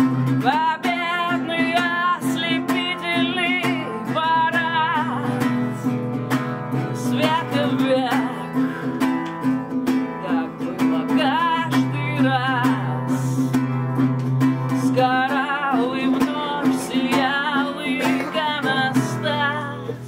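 Acoustic guitar played with strummed chords, with a woman singing a wavering, held melody over it in short phrases.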